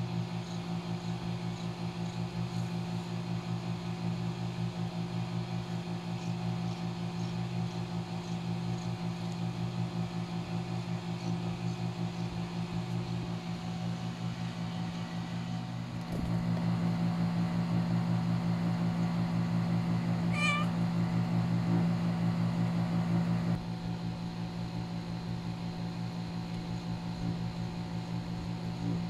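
Siamese cat in labor purring steadily, louder for several seconds in the middle, with one short meow about twenty seconds in.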